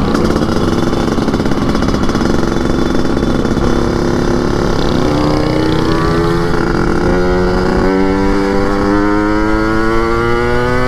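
Yamaha RX-King 135cc two-stroke single breathing through an open air filter and a chromed under-belly expansion-chamber exhaust, tuned for a raspy 'ngorok' note. It is pulling hard under way: the engine pitch climbs in each gear and drops back at gear changes about four, five and eight seconds in.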